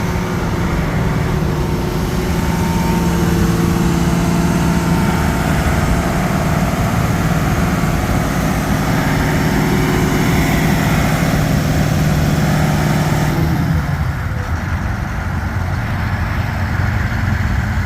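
John Deere 750K bulldozer's diesel engine running steadily. About thirteen seconds in, its pitch slides down and the sound turns lower and duller, as the engine slows.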